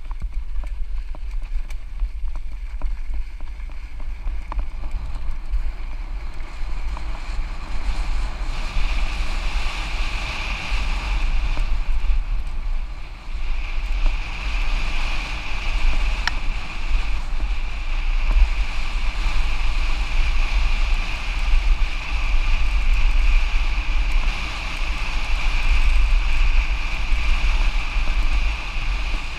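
Mountain bike descending a dirt trail at speed: wind buffeting the action camera's microphone over the rattle and tyre noise of the bike. A steady high buzz joins about eight seconds in.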